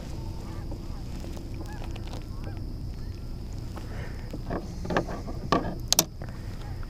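Waterfowl honking repeatedly over a steady low rumble of wind and water, with a few sharp clicks and knocks close together about five to six seconds in.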